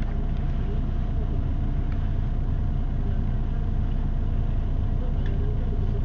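City bus engine idling, heard from inside the passenger cabin: a steady low rumble with a faint steady hum above it and a couple of light clicks.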